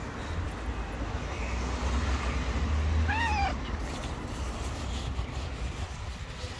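Hungry ginger-and-white stray cat meowing once, a short meow that rises then falls in pitch about three seconds in, over a steady low rumble.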